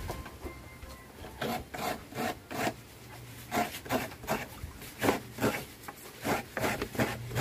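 Fresh coconut meat being grated: a coconut half scraped against a hand grater in rasping strokes, about two or three a second.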